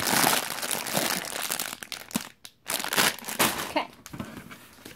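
Clear plastic Lego parts bags crinkling as they are handled, with a brief pause about halfway through.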